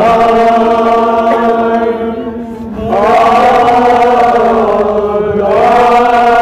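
Men's voices chanting a nauha, the Shia Muharram lament, in long held notes, with a new phrase beginning about three seconds in and another near the end.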